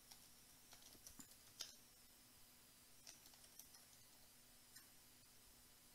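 Faint, irregular clicks of keystrokes typed on a computer keyboard, over a faint steady hum.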